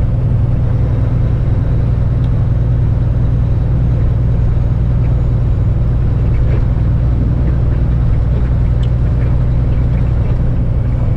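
Steady low drone of a Kenworth tractor's diesel engine with road noise, heard from inside the cab while driving with a loaded lowboy trailer in tow.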